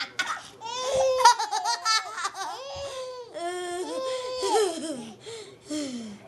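A baby girl laughing and squealing with delight: a short giggle at the start, then a string of drawn-out, high-pitched vocal sounds that rise and fall, the last ones sliding downward near the end.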